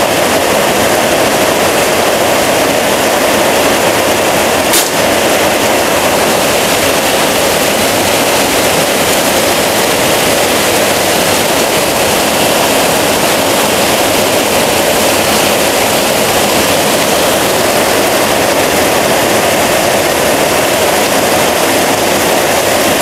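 Heavy rain pouring down, a loud steady hiss. A single sharp crack about five seconds in is a shot from the FX Crown PCP air rifle.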